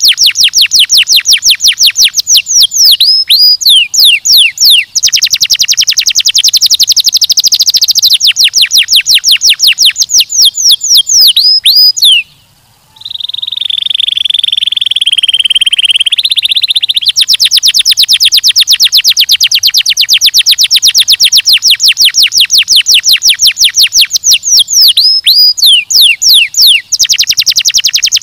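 Domestic canary singing: long, fast trills of rapidly repeated high notes, broken here and there by a few down-slurred notes. A little before the middle the song breaks off briefly and gives way to a lower, buzzy roll of a few seconds, then the fast trills return.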